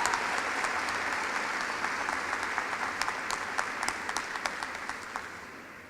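Audience applauding in a large arena, the clapping dying away near the end.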